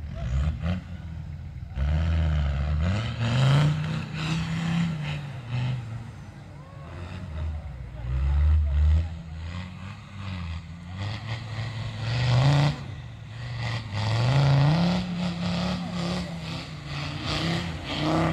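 Off-road four-by-four's engine revved hard over and over, its pitch climbing and dropping with each surge of throttle while the vehicle works over rocky ground.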